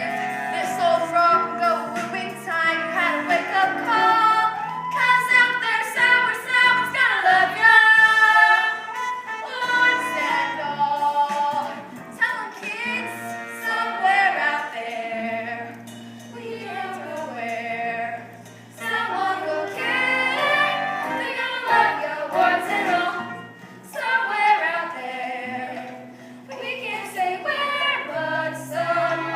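A cast of young voices singing a musical-theatre song together as a chorus, over instrumental accompaniment with held bass notes.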